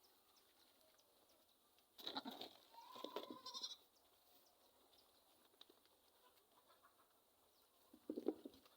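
Goats bleating faintly: short calls about two and three seconds in and a quavering one near the end, with near silence between.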